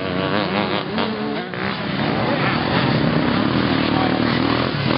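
Vintage off-road motorcycle engines revving, their pitch wavering up and down as the riders accelerate on the dirt course. Two or more bikes are heard at once.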